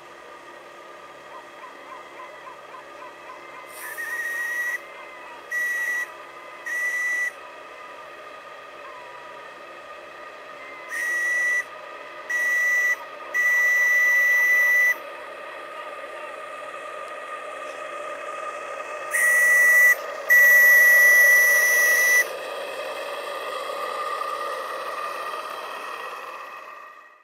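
Model steam launch's whistle sounding in blasts over the steady hiss of its steam plant. Three short toots come about four seconds in, then two short and one long around eleven seconds, then a short and a long blast near twenty seconds. The hiss grows louder later on and fades out at the very end.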